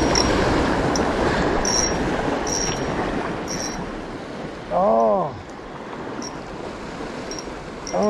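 Fast-flowing river water rushing, loudest in the first few seconds. About five seconds in, a man lets out one short drawn-out exclamation.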